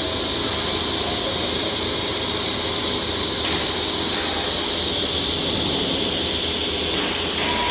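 Woodworking CNC machining centre running, a steady high hiss with a whine over it. The tone shifts a couple of times as the machine changes what it is doing.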